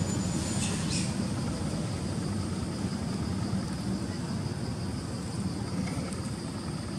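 Outdoor ambience: a steady low rumble with a thin, steady high hum above it, and a short high squeak about a second in.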